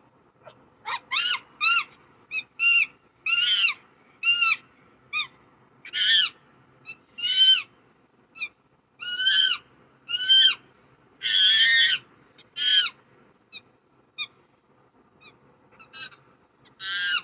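Chimpanzee calling: a rapid series of about a dozen high-pitched hoots and screams, each rising then falling in pitch. A longer, harsher scream comes around the middle, and a few fainter calls follow near the end.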